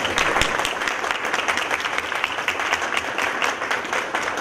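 Audience applauding, many hands clapping at once in a dense, steady stream of claps.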